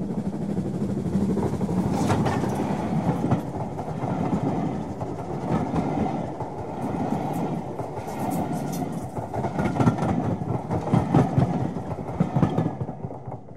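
00 gauge model train running on track: a steady rumble with wheels clicking over the rail joints, fading out near the end.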